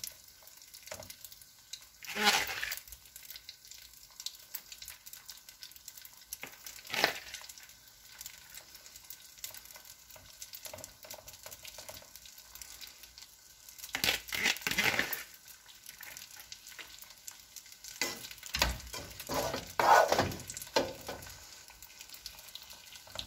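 Drained spaghetti lifted with a spaghetti server and dropped into a pot, giving soft wet slaps and stirring scrapes of the utensil against the pot in short bursts a few seconds apart.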